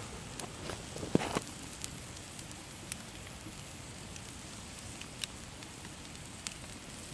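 Small campfire of dry bracken and kindling sticks just catching, crackling with scattered sharp pops over a steady hiss; the loudest pops come about a second in.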